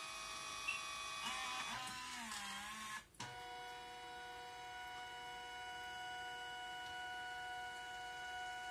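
Victure 4x6 dye-sublimation photo printer's paper-feed motor whining as it moves the photo paper through the print head. The pitch wavers and sags, then stops for a moment with a click about three seconds in as the paper changes direction. After that the motor runs on at a steady whine, drawing the paper back the other way.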